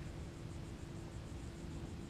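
Steady outdoor background noise: a low rumble with a faint steady hum and a faint, rapid, high-pitched pulsing.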